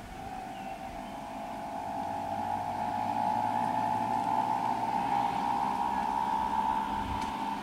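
Motor vehicle engine running with a steady drone that swells over several seconds and eases near the end.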